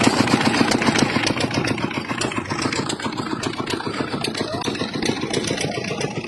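A small engine running close by, with a rapid, even chug that is a little louder in the first second.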